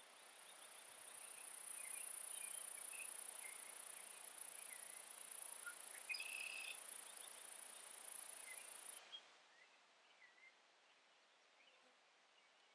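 Outdoor ambience dominated by a steady, very high-pitched insect drone, with a few faint bird chirps. It builds up over the first couple of seconds and cuts off abruptly about nine seconds in, leaving only quiet background.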